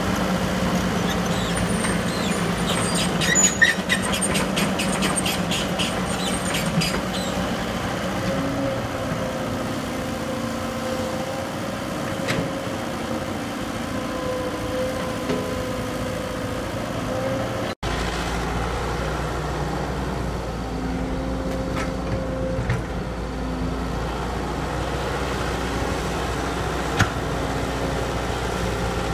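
Heavy diesel construction machinery running steadily, with a spell of rapid clicking a few seconds in and a sudden break about 18 seconds in.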